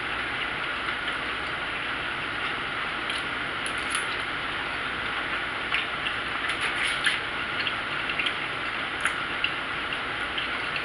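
Eating sounds: scattered sharp clicks and crunches of chewing and utensils, over a steady background hiss.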